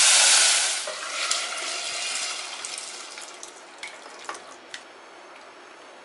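Hot butter tempering in a pressure cooker sizzling loudly as boiled chickpeas and their cooking water are poured in. The hiss is strongest at first and dies down over the next few seconds, with a few light clicks near the end.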